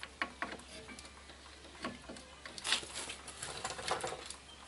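Scattered light clicks and taps of hands and a socket tool working at a car's front brake caliper, as the caliper bolts are about to be undone.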